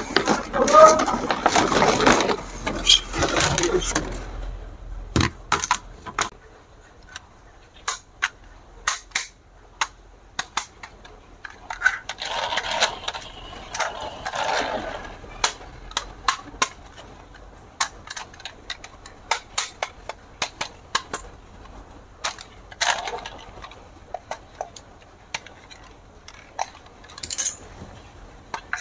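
Scattered sharp clicks and knocks of hard plastic being handled, with two stretches of a wavering, voice-like sound, one at the start and one about twelve seconds in.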